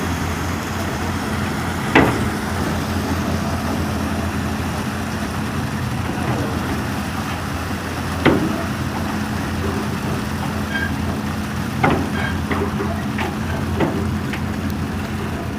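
A site machine's engine running steadily, with a few sharp metallic knocks or clanks over it, four of them louder than the rest.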